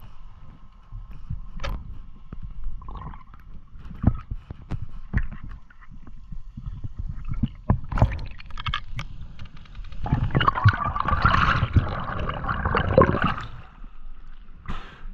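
Muffled underwater sound through a diving camera's housing: scattered knocks and thumps over a low rumble, then about three seconds of loud gurgling and water rush a little after halfway as the diver rises to the surface.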